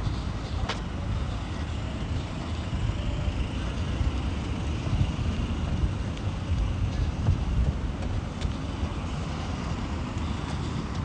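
Road traffic nearby: a steady low rumble of passing vehicles with a faint hiss above it.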